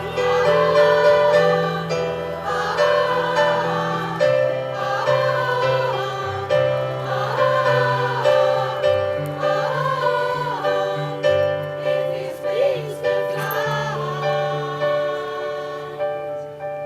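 Choir singing in harmony: held chords under a melody line that moves up and down, with the low notes shifting every second or two.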